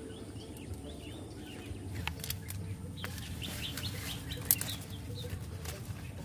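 Garden plant leaves and stems rustling and crackling as radishes are pulled by hand, with a few sharper crackles around two and four seconds in. Faint bird chirps throughout.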